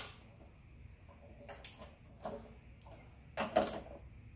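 A few scattered light metallic clicks and clinks from hand tools and fittings being worked inside a go-kart's sheet-metal electrical box, the loudest a little past three seconds in.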